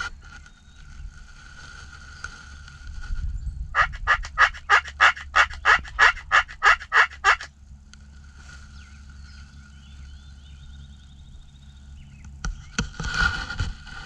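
Turkey yelping: a run of about a dozen loud, evenly spaced yelps lasting nearly four seconds. A shorter loud burst of turkey sound follows near the end.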